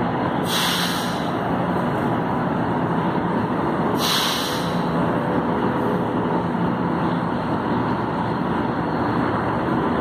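Metro train standing at the platform with its doors open, its equipment running under a steady noise, and two short hisses of compressed air from the brakes, about half a second in and again about four seconds in.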